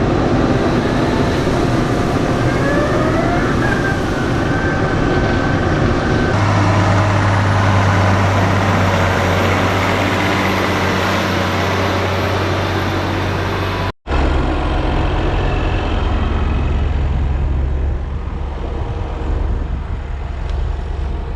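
A heavy motor vehicle's engine running steadily with a deep hum. The sound cuts out for an instant about two-thirds of the way through, then carries on.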